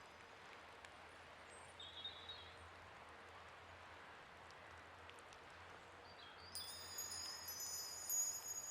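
Soft, high ringing chimes: several sustained bright tones overlapping, growing louder from about six and a half seconds in, over a faint steady hiss.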